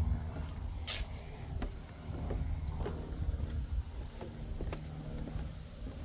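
Footsteps on wooden boardwalk planks, about one and a half steps a second, over a steady low rumble.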